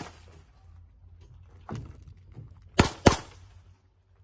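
Two handgun shots fired in quick succession, a pair about a third of a second apart roughly three seconds in, after a pause between targets with a fainter single knock earlier.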